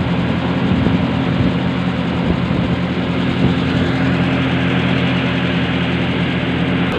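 Fishing boat's engine running steadily, an even low hum with a hiss above it.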